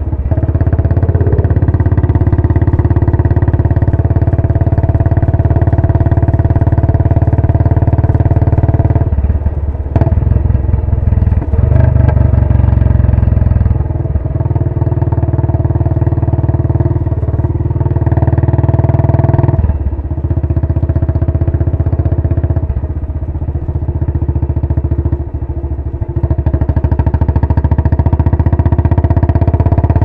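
Royal Enfield Bullet 500's single-cylinder engine running through a Punjab long bottle silencer while cruising at low speed, a steady exhaust beat. It eases off and picks up again briefly several times.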